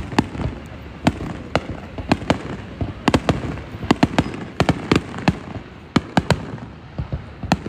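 Fireworks display: a rapid, irregular string of sharp cracks and bangs from bursting aerial shells, thickest in the middle, over a steady background rumble.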